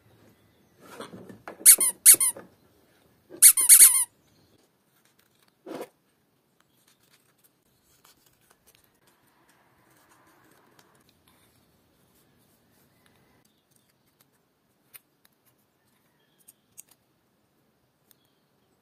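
Adhesive tape being pulled off the roll in two short, loud screeching pulls, about two and four seconds in, while shimming an undersized drill part. A few faint clicks follow.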